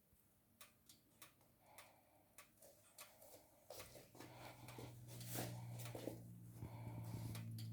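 Faint scattered clicks and taps, joined about halfway by a low steady hum.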